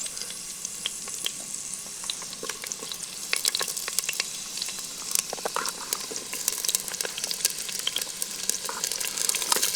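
Hot oil frying in a clay pot over a campfire: a steady sizzle with frequent sharp crackles and pops.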